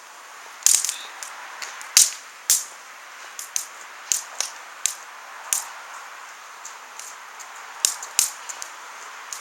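Wood fire crackling: a steady hiss with sharp pops and snaps at irregular intervals, the loudest within the first three seconds.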